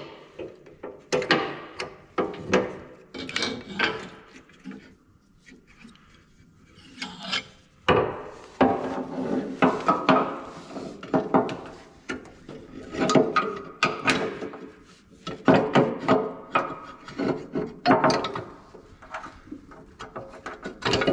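Steel parts scraping and clinking as a bolt and sensor bracket are worked into place by hand on a Cat 259D skid steer's bucket linkage. The sounds come in irregular bursts, with a short lull about five seconds in.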